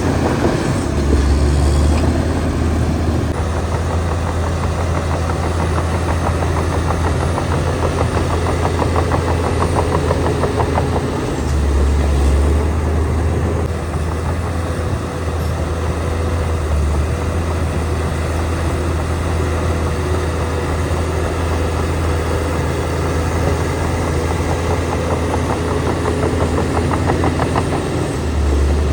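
Heavy diesel engine of earthmoving machinery running steadily with a low drone. It swells louder about a second in, again around twelve seconds in, and near the end.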